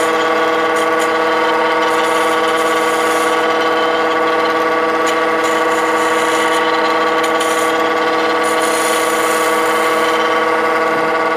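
Wood lathe running steadily with an even motor whine, while a gouge lightly skims the spinning wooden pen blank to clean off the turning ridges, adding a light, uneven scraping hiss.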